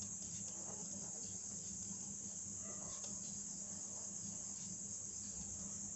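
Faint scratching of a ballpoint pen writing on paper, over a steady high-pitched background trill and a low hum.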